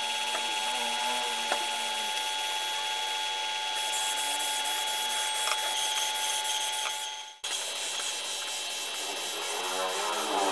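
Compressed-air gravity-feed spray gun hissing as it sprays clear varnish, over a steady mix of tones. The sound cuts off abruptly a little past seven seconds in and picks up again at once.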